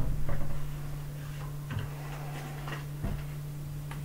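Faint, scattered ticks and scratches of a marker writing on a whiteboard, over a steady low hum.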